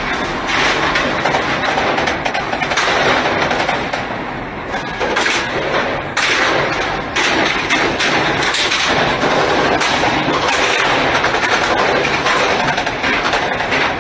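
Heavy, continuous gunfire: a loud, dense crackle of many shots close together, easing briefly about four and a half and six seconds in.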